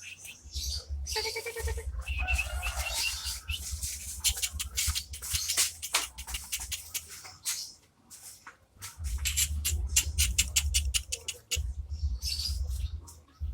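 Cucak ijo (green leafbird) singing: fast runs of sharp chips and clicks mixed with a few short whistled notes, breaking off briefly about eight seconds in. A low rumble sits underneath.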